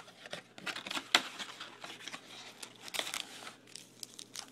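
Foil trading-card packs crinkling and rustling as a stack of them is pulled from the box and handled, with irregular crackles and sharp clicks, the loudest about a second in and again near three seconds.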